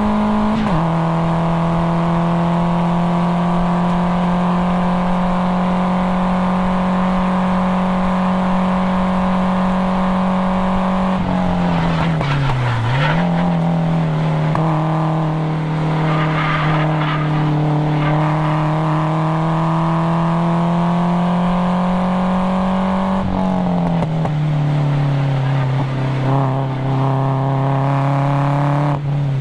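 1997 Nissan 240SX's KA24DE four-cylinder engine, through a cat-back exhaust, pulling hard around a race track. Its pitch climbs slowly for long stretches and drops sharply about a second in, again a third of the way through with a brief deeper dip, and once more near the end, as the driver shifts or lifts for corners.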